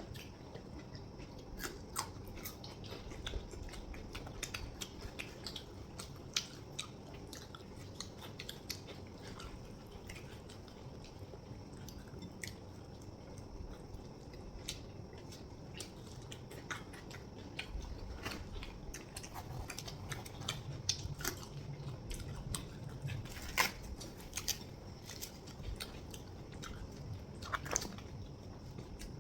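People chewing mouthfuls of chhole bhature, fried bread with chickpea curry, with scattered short clicks of eating throughout.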